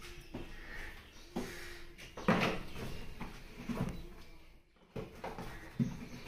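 Glue bottles and packets being handled in a cardboard box: a series of knocks, taps and rustles as items are lifted out and set down, the loudest knock about two and a half seconds in.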